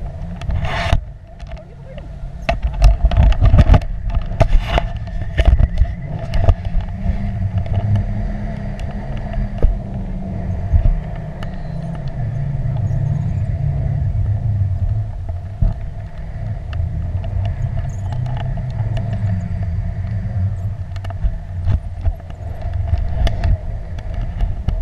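Wind rushing over the microphone of a pole-mounted camera in tandem paraglider flight: a loud low rumble with scattered sharp clicks and knocks.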